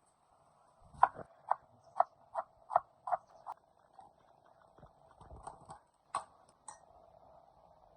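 Sharp knocks of cooking work, a quick regular run of about two or three a second for a couple of seconds, then fainter scattered taps.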